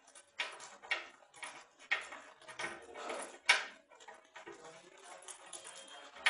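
Freshly mixed sticky glue slime being worked, making a run of irregular sticky clicks and snaps, about two a second, the loudest a little past halfway. The stickiness shows the slime is not yet fully set.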